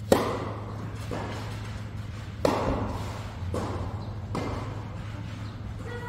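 Tennis rally: a served ball cracks off the racket strings, then racket hits and ball bounces follow about once a second, five strikes in all, each echoing in a large indoor court hall. The serve and a second hit halfway through are the loudest.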